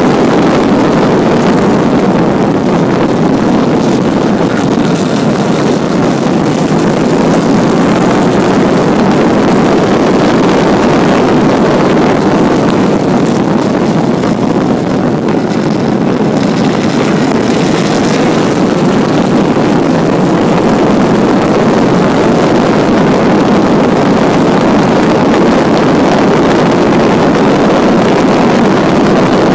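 1952 Jaguar XK120's 3.4-litre twin-cam straight-six running hard on a race track, a loud, steady engine note heard from on board the car.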